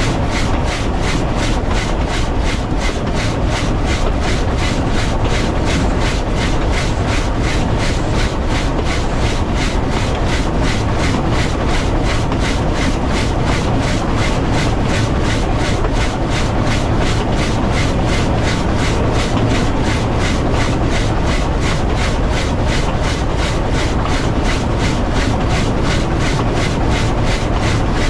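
W class steam locomotive running steadily along the line: an even, quick rhythm of exhaust beats over a continuous low rumble of the engine and wheels on the track.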